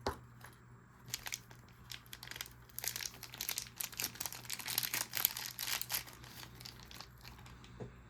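Wrapping material crinkling as it is handled and opened by hand: a run of quick crackles, densest in the middle and thinning out near the end.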